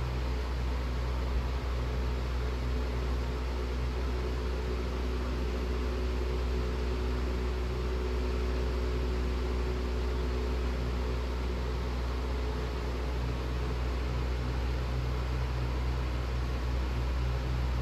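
A steady low mechanical hum with an even hiss over it, and a faint higher tone that comes in a couple of seconds in and fades about two-thirds of the way through.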